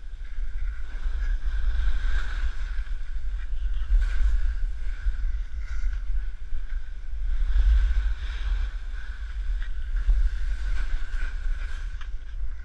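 Wind buffeting the camera microphone and skis hissing over snow on a downhill run, the rush swelling and easing every couple of seconds.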